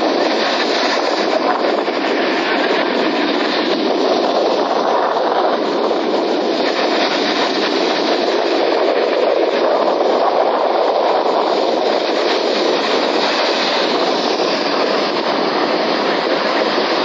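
Sea waves: a steady rush of surf that swells and eases every few seconds.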